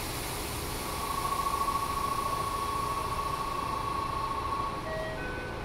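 Stationary electric train car with its doors open: the steady hiss and hum of the car's equipment. Over it a single electronic tone is held for about four seconds, and near the end a door chime of short alternating beeps begins.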